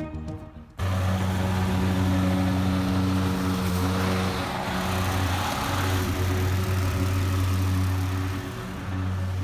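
Gas-powered lawn mower engine running steadily under load while mowing grass, a low hum with a rushing noise over it; it cuts in abruptly about a second in, and dips briefly near the end.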